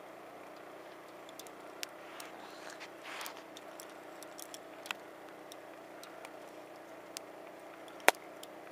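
Fishing rod and round baitcasting reel being handled while playing a fish: scattered small clicks and one sharp, loud click near the end, over a steady rushing background.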